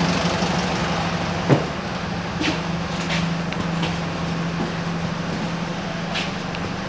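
Cobus airport apron bus idling: a steady low engine and air-conditioning hum. A single thump comes about one and a half seconds in, followed by a few light clicks.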